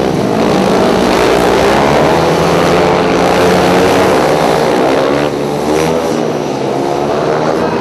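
Several 500cc single-cylinder speedway motorcycles racing at full throttle, their engine pitch wavering as the riders work the throttle through the turn. The sound drops slightly about five seconds in.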